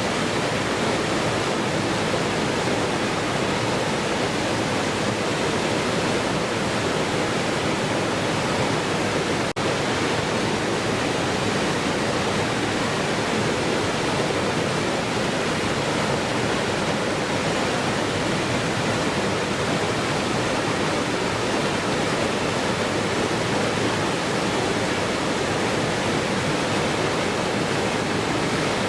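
Waterfall with a steady, unbroken rush of falling water. There is a momentary dip in the sound about nine seconds in.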